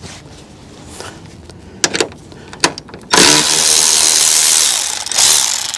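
Milwaukee cordless electric ratchet spinning out a 10 mm grille screw: a few light clicks, then the motor runs fast and steady with a whine for about two seconds from about three seconds in, and gives a short second burst near the end.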